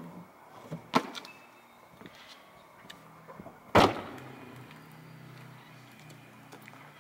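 Pickup truck door slammed shut just before four seconds in, the loudest sound, with a sharp click about a second in. A faint low steady hum lies underneath.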